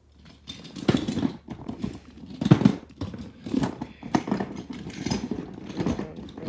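Monster Jam toy monster trucks clattering and knocking against each other as a hand rummages through a drawer full of them, in repeated bursts of rattling.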